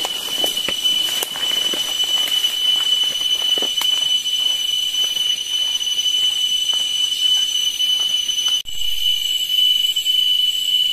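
Steady, high-pitched drone of forest insects such as cicadas, one unbroken tone over light background hiss with scattered faint ticks.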